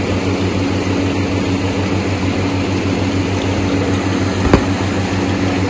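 Steady machine hum with a constant low drone and an even rushing noise, as from a motor-driven fan or blower running. One sharp click about four and a half seconds in.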